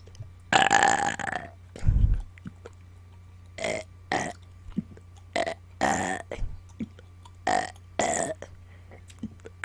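A woman burping over and over: one long, drawn-out burp about half a second in, then a string of shorter burps spaced a second or so apart. Faint clicks fall between them.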